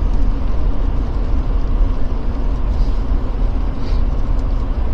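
Jeep Gladiator driving slowly on a snow-covered road: a steady low rumble of engine and tyre noise.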